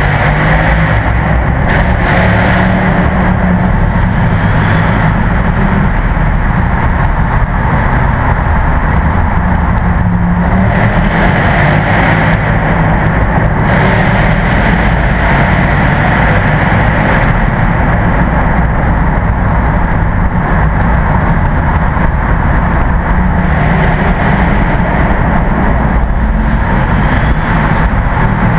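Mercedes-Benz SL55 AMG's supercharged 5.4-litre V8 running loud through a custom exhaust in a tunnel, held at fairly steady revs with small rises and falls.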